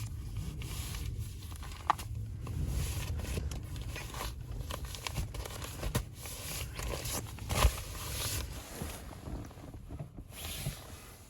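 Plastic snack packaging rustling and crinkling as it is handled, with scattered small clicks and knocks, over a low steady rumble.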